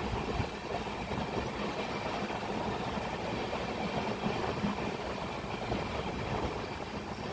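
Steady rumble of an Indian Railways passenger coach's wheels running along the track, heard from the coach's open doorway as the express comes into a station.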